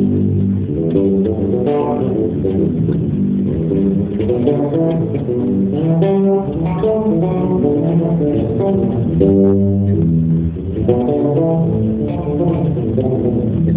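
Amplified band music with guitar and bass guitar playing steadily through a sound check.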